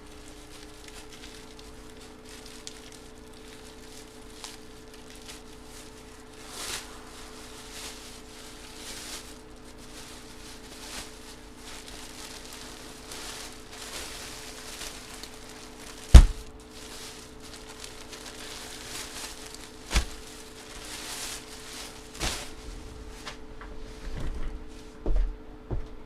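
Hands rummaging in a bag and handling packing supplies: faint rustling with a few knocks on a table. The loudest is a sharp thump about 16 seconds in. A steady low hum runs underneath.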